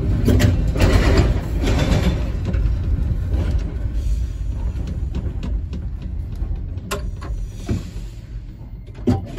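W class electric tram running on its track, with a low rumble of wheels on rail and some clattering and clicks, growing quieter toward the end.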